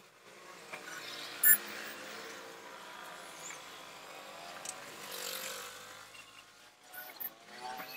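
A thin steel piston ring gives one sharp metallic clink about one and a half seconds in, as rings are handled onto the piston. Under it, a passing vehicle engine hums, growing louder around the middle and fading.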